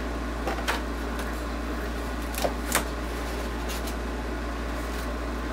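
Steady low background hum, with a few light clicks and rustles of cardboard as the flaps of a box are opened.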